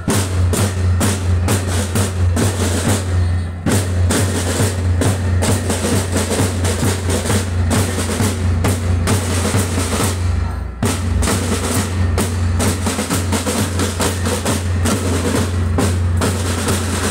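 School drum band of snare drums and a bass drum playing a rhythm together, rehearsing.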